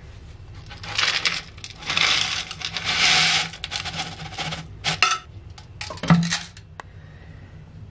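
Small scraps of lead poured from a plastic bottle into an empty steel tin can, landing in three loud pours, then a few scattered clicks. A single sharp knock comes about six seconds in.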